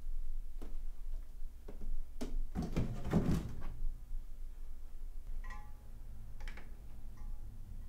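A cardboard box is lifted off a glass carboy and set down on a shelf: scattered clicks, then a loud burst of cardboard scraping and bumping about three seconds in. A few faint short squeaks and clicks follow near the end.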